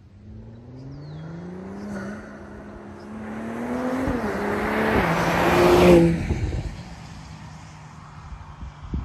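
Mercedes-AMG GLE 53's turbocharged inline-six accelerating hard past the listener, its exhaust note climbing in pitch with quick upshifts around two, four and five seconds in. It is loudest as it passes about six seconds in, then the note drops and fades as it drives away.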